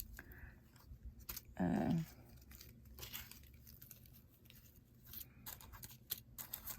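Small plastic bags of diamond painting drills being handled and opened: crinkling, tearing rustles and light clicks, with a brief murmur of voice a little under two seconds in.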